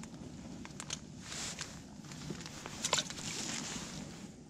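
Rustling of a winter jacket and a few small sharp clicks as hands unhook a small perch and handle the hook, with a low steady rumble underneath.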